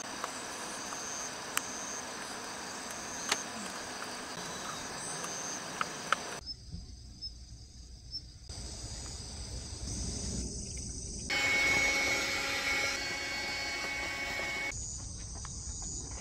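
Crickets and other insects chirring in a steady high drone, with a few faint clicks. About six seconds in the sound changes abruptly to a low rumble under the chirring, and a louder stretch of steady tones comes in for a few seconds near the end.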